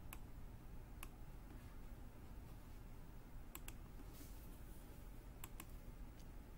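Computer mouse clicks: about seven short sharp clicks, two of them in quick pairs, over faint room hiss.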